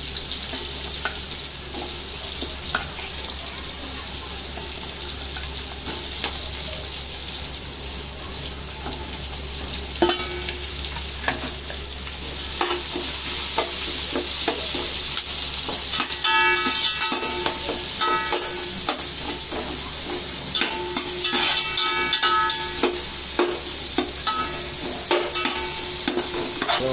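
Sliced onions sizzling in hot oil in an aluminium pot, being sautéed on a high flame. From about halfway through, a steel slotted spoon stirs them, clinking and scraping against the pot, and at times the scrape rings with a squeaky tone.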